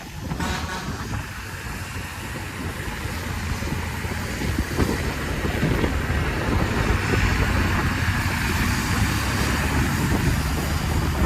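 Intercity bus's diesel engine running under load, with tyre and wind noise, growing steadily louder.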